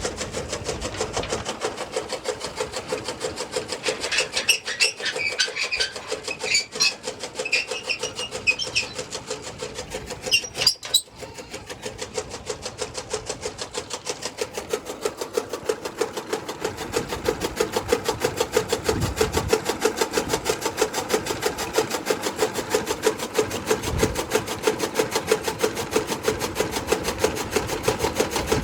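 Powered toka chaff-cutter running and chopping grass fodder in a fast, steady rhythm. A few short high chirps sound over it in the first third.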